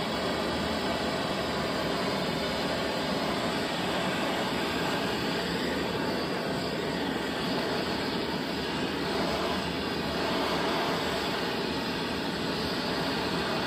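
Gas torch burning steadily with an even rushing noise, its flame heating the dented rim of an alloy wheel before the dent is pushed out.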